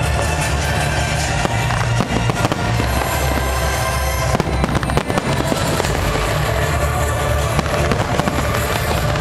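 Fireworks display going off: many bangs and crackles in quick succession, with music playing alongside.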